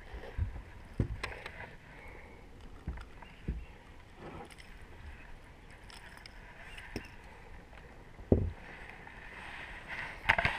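Scattered dull knocks and bumps of someone moving about and handling gear on a small fishing boat's deck, the loudest about eight seconds in.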